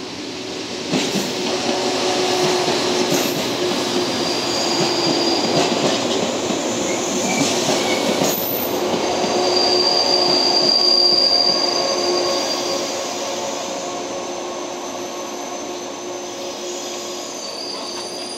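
Electric train of KuMoYa 145 units and a 115-series set passing through a station: steady wheel-on-rail noise with a held tone, high wheel squeal coming and going, and a few rail-joint clacks. It grows loudest about ten to twelve seconds in, then fades as the train moves away.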